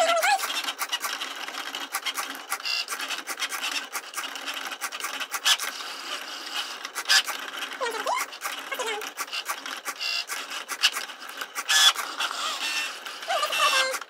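Cricut Maker cutting machine running its test cut: the carriage motors whir, with quick clicks and short rising and falling whines as the blade moves over the card and the mat feeds. It stops abruptly at the very end as the cut finishes.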